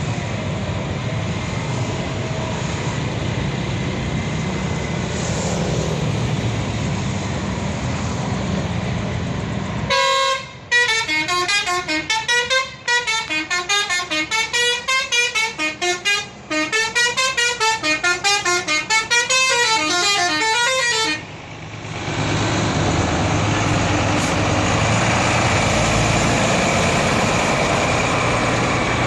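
Tour bus telolet horn playing a fast melody: rapid notes run up and down in repeating ripples for about eleven seconds, with a couple of brief breaks, then stop. Before and after it, steady bus engine and traffic noise.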